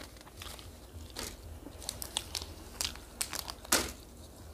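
Close-up eating noises: a scattering of small crinkles and clicks as food and its plastic packaging are handled and eaten. The sharpest click comes near the end.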